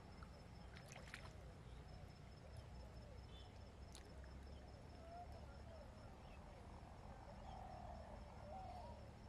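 Near silence: faint outdoor ambience with a thin, steady high tone, faint wavering calls and a couple of faint clicks about one and four seconds in.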